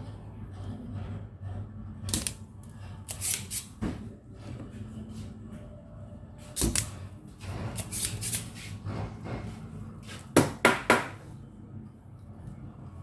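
Scattered sharp clicks and knocks from handling tools and parts at a repair bench, loudest in a quick run of three near the end, over a steady low hum.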